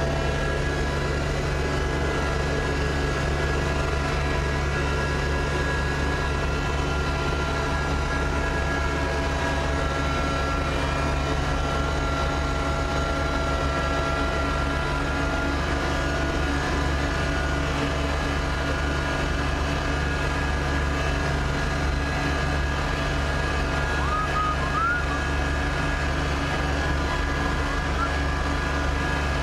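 Kubota BX2680 compact tractor's three-cylinder diesel engine running steadily, heard from inside its cab.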